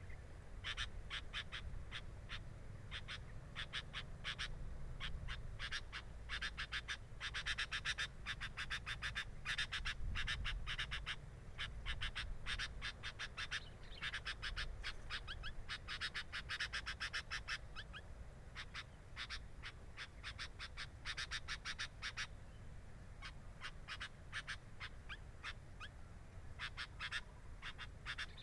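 Sooty-headed bulbuls at the nest giving rapid, high chirps in bouts of several seconds, with short pauses between bouts.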